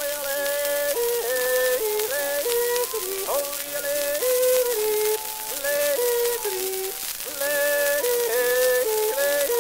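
A male singer yodeling a wordless refrain, his voice leaping quickly between held notes, over the steady hiss and crackle of an early Columbia 78 rpm shellac disc.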